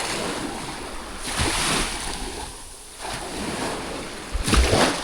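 Sea waves washing onto a sandy beach in swells of surf, with wind buffeting the microphone in a loud gust near the end.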